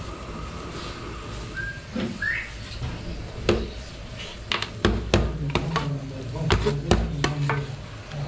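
Metal ladle clinking and scraping against a large steel serving tray as siri paye is dished out. Sharp clinks start a few seconds in and come thick and fast, over a murmur of voices.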